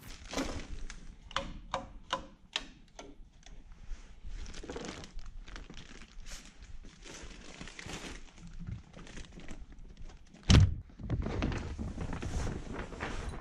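Knocks and clatter of gear being handled and set down, with rustling and scraping between. One heavy thump about ten seconds in is the loudest sound.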